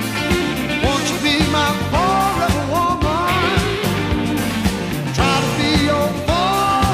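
Background music: a song with singing over a steady drum beat and bass.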